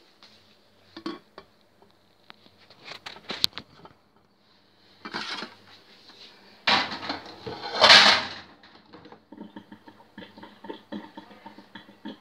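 Kitchen containers and utensils being handled on a counter: scattered clinks and knocks, with two louder noisy bursts a little past the middle, then a run of small quick clicks.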